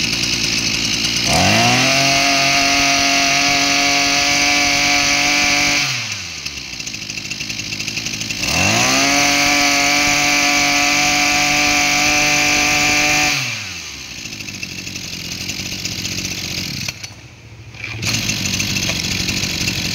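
Maruyama 26cc two-stroke backpack brush cutter engine idling and revved up twice. Each rev rises quickly, is held for about four to five seconds, then drops back to idle. Near the end the engine note dips briefly before the idle picks up again.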